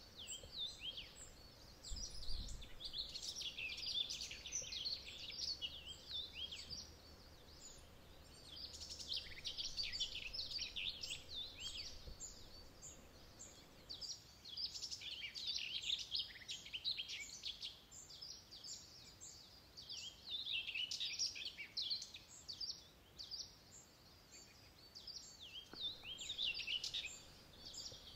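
Songbird singing: bouts of rapid high chirps and short whistled notes, each a few seconds long, coming back every five to six seconds over faint background hiss.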